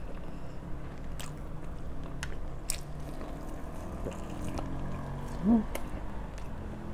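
Mukbang eating of crispy pork and fresh vegetables: scattered sharp crunches as they are bitten and chewed. A brief rising tone about five and a half seconds in is the loudest moment.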